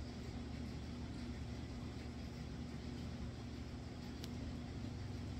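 Room tone: a steady low hum with a faint hiss, and one faint click about four seconds in.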